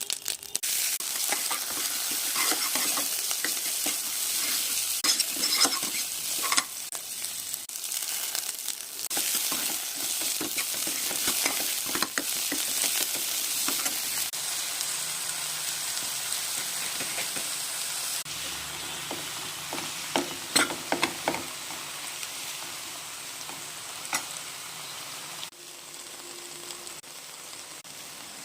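Potatoes and fenugreek leaves frying in hot oil, sizzling steadily while a spatula stirs and scrapes against the pan. The sizzle grows somewhat quieter near the end.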